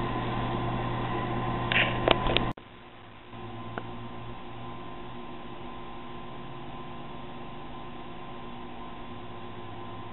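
Steady electrical hum from a home-brewing RIMS rig, with a low mains tone running under it. A few sharp clicks come about two seconds in, then the sound drops suddenly to a quieter hum of the same kind.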